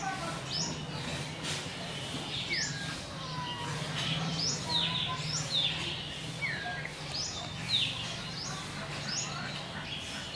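Small birds chirping, short sharp calls that drop in pitch, repeated about once a second, over a steady low hum.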